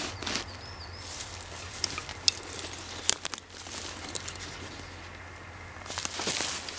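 Handling noise as a heavy backpack and a camera bag are hung on wooden stick pegs lashed to a tree trunk: fabric and straps rustling, with a few sharp clicks and knocks of buckles and the bags against the pegs.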